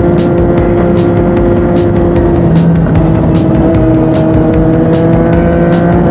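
Yamaha MT-09's 847 cc inline three-cylinder engine running through an Akrapovic shorty exhaust under way. The revs hold steady, drop briefly about two and a half seconds in, as at a gear change, then climb slowly.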